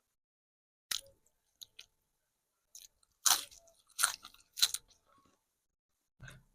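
Close-miked crunchy biting and chewing of food: a series of separate crisp crunches, the loudest three close together around the middle, then a last softer one near the end.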